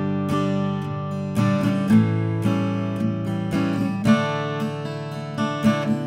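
Eastman E10-00 twelve-fret 00 acoustic guitar, with an Adirondack spruce top and mahogany back and sides, strummed in a steady rhythm and changing chords several times.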